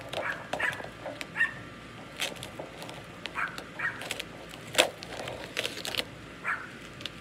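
A dog barking in short, repeated barks, mixed with sharp clicks and crackles of plant packaging being handled; the loudest click comes just before the five-second mark.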